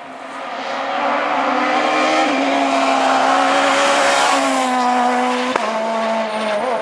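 Renault Clio S1600 rally car's high-revving four-cylinder engine, held near the top of its revs as the car approaches and passes. It grows louder over the first second and is loudest about four seconds in. The pitch dips slightly a few times at gear changes, and a sharp crack comes about five and a half seconds in.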